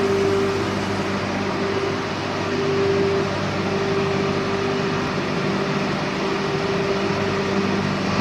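Wire mesh belt shot blasting machine running: a steady mechanical hum with a constant tone over an even rushing noise.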